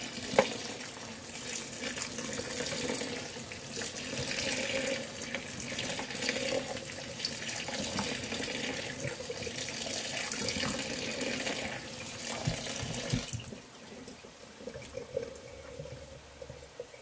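Cold water running from a kitchen tap onto boiled rice in a colander in a steel sink, rinsing the rice so it stays loose and not sticky, with a few sharp clicks of a spoon stirring it. The tap is shut off about thirteen seconds in.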